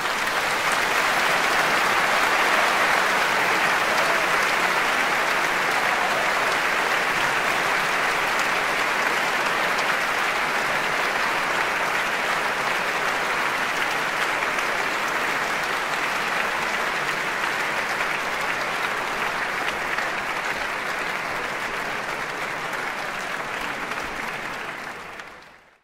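Large audience applauding, dense steady clapping that swells in at the start, eases off gradually and cuts off abruptly at the very end.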